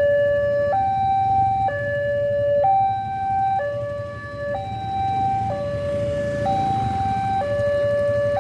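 Railway level-crossing warning alarm sounding two electronic tones, a lower and a higher, that alternate about once a second, signalling that the barrier is down and a train is approaching.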